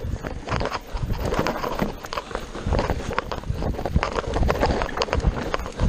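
Mountain bike running fast down a rocky, rooty trail: tyres crunching over stones and dirt, with frequent sharp knocks and rattles from the bike over each hit, over a low rumble.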